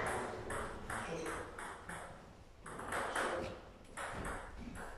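Table tennis ball clicking as it bounces, a series of short, sharp ticks a few tenths of a second apart.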